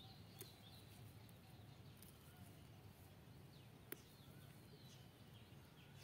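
Near silence: faint rural outdoor ambience with scattered faint bird chirps, and a single small sharp click about four seconds in.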